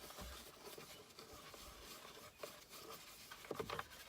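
Horsehair detailing brush scrubbing around a dial on a car's plastic center console, a faint, scratchy scrubbing with a few light taps near the end.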